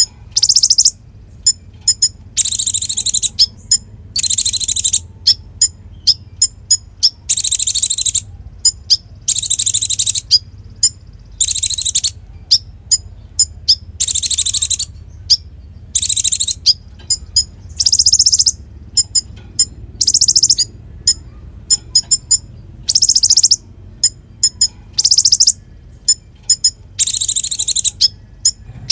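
Kolibri ninja sunbird singing: loud, high, rapid trills about a second long, repeated every second or two, with short sharp chips in between.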